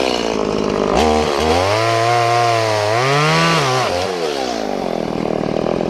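Two-stroke gas chainsaw revved up to full speed about a second in, held high and climbing a little further while cutting through a dead Osage orange limb. Near four seconds it falls back to a wavering idle.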